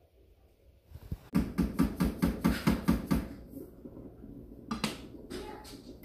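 A quick, even run of about ten sharp taps or knocks, about five a second, lasting about two seconds, followed by a couple of fainter knocks near the end.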